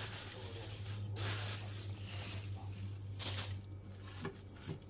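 Hand pressing and breaking up a mass of sculpin roe on a plastic cutting board: a wet rustling noise that comes in a few surges, over a low steady hum.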